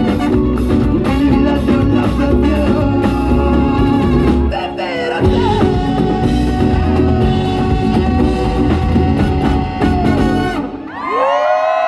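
Live Latin pop band playing with guitar, bass and drums. About eleven seconds in the drums and bass stop, leaving a few held notes ringing.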